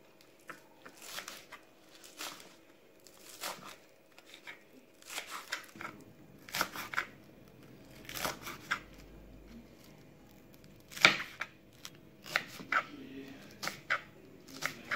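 Kitchen knife slicing spring onions on a plastic cutting board: irregular crisp cuts and taps of the blade on the board, one or two a second, with one loud chop about eleven seconds in.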